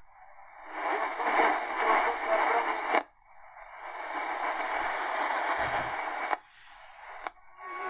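AM medium-wave reception from the XHData D-808 portable radio's speaker while it is tuned up the band. A station's voice-like audio cuts out with a click about three seconds in as the radio steps to the next frequency. It gives way to a hissy, weak signal with static, and drops out again with another click near the end.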